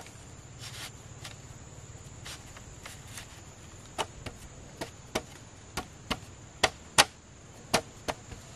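Chopping strikes on wood with a hand tool: an uneven run of about ten sharp chops, starting about four seconds in and loudest near the end.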